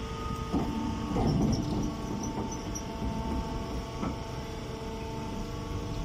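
Hay baler's electric motor and hydraulic pump running with a steady hum, with a few knocks and straw rustles in the first couple of seconds.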